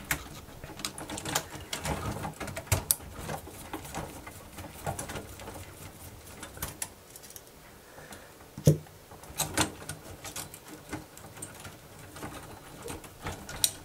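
Scattered small clicks and knocks of hands and a screwdriver handling the plastic frame and metal parts of a cassette deck's tape mechanism during teardown, with one louder knock about two-thirds of the way through.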